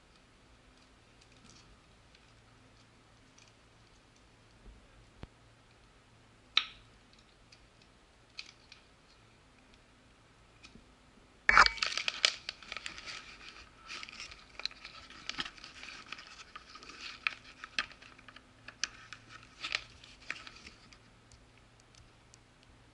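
Handling noise as the multimeter's test leads are taken out and handled: a few faint clicks, then a sharp knock about halfway through, followed by several seconds of rustling and clicking that stop shortly before the end.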